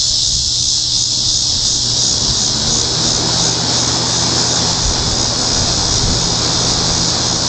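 Vintage box fan's Westinghouse electric motor running after being switched on, a steady low hum and whir that fills out over the first few seconds as the blades come up to speed. A loud, steady, high insect buzz sounds over it.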